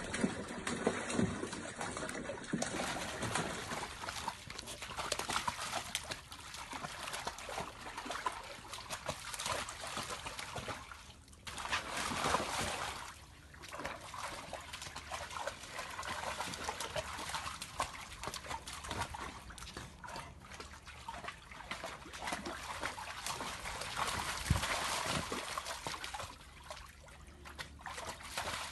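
Dogs wading and playing in a shallow paddling pool: water sloshing and splashing around their legs, with trickles and drips, in uneven splashes that come and go, dipping briefly a few times.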